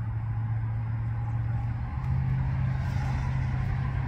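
A motor vehicle engine running steadily, a low hum that steps up slightly in pitch about two seconds in, over a haze of road noise.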